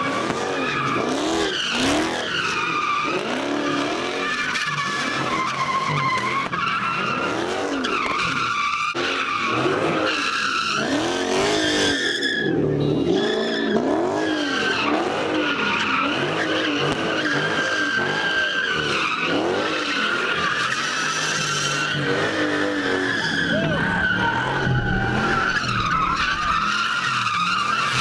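A car spinning donuts with its tyres squealing continuously on the pavement. The engine revs up and down over and over, about once a second.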